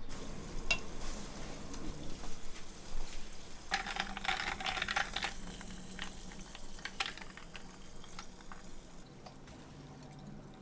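Water splashing and running in a kitchen, with small clicks and knocks of things being handled; it is busiest about four to five seconds in and fades toward the end.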